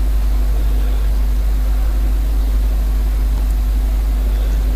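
A steady deep hum with a light hiss and a fainter steady higher tone, unchanging throughout.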